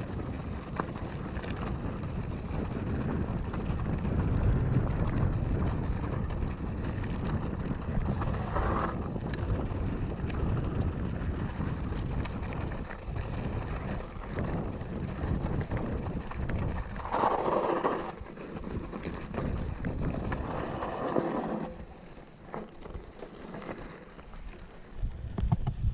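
Wind rushing over an action camera's microphone while riding a mountain bike on a trail, with the rumble of the bike over the ground. Near the end the wind drops and a few knocks stand out.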